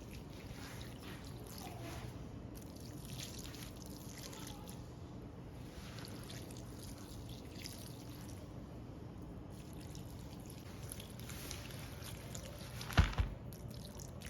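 Water being poured and trickling into dog food bowls. Near the end there are two sharp knocks close together.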